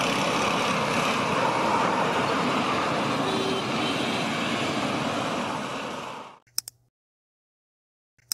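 Steady jet engine noise from a Boeing 787-8 moving on the ground, which fades out quickly about six seconds in. Two short pairs of clicks follow, the second as an on-screen hand cursor presses a subscribe button.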